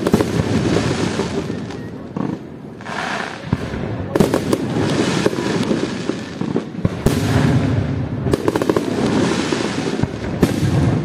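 Aerial firework shells bursting in the sky, with a sharp bang every one to three seconds. Each bang is followed by dense crackling from the glittering stars and a rolling echo.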